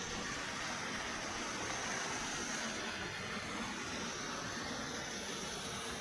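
Steady rushing noise of a waterfall: water pouring over rocks, even and unbroken.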